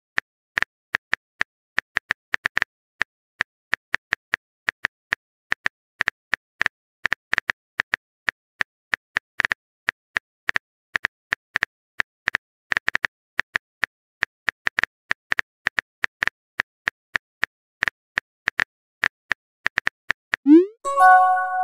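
Rapid, irregular taps of a phone keyboard sound effect, several a second, as a text message is typed out. About a second before the end, a rising bloop followed by a short chime: the message-sent sound.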